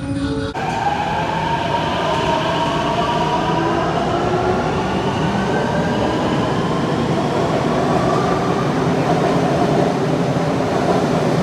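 Subway train running, with a steady rumble and the whine of its traction motors rising slowly in pitch as the train gathers speed, fading out near the end.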